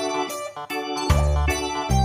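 Background music: short, evenly repeated chords over a bass line, with the bass coming in strongly about a second in.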